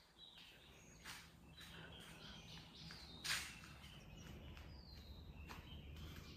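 Faint small birds chirping in short high notes. A short sharp sound about three seconds in is the loudest moment.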